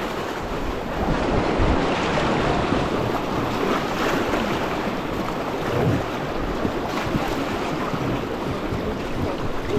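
Fast river water rushing and splashing around a raft, with wind buffeting the microphone.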